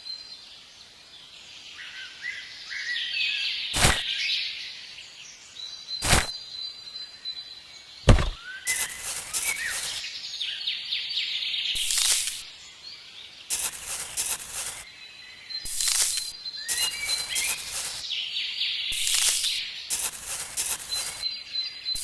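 Birds chirping, with three sharp knocks in the first half, then many short, hissy strokes coming in quick clusters.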